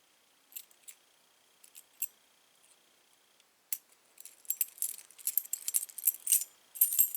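Metal keys on a key ring clinking and jingling as they are handled: a few light clicks at first, then steadier jingling that grows louder near the end.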